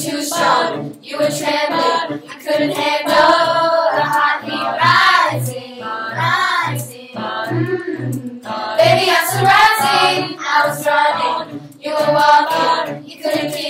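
Girls' school choir singing a pop song in harmony, with a low note pulsing steadily about twice a second beneath the voices.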